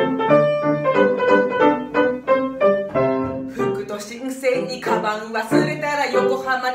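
Grand piano playing a lively tune. About halfway through, a woman's voice comes in, singing over the piano.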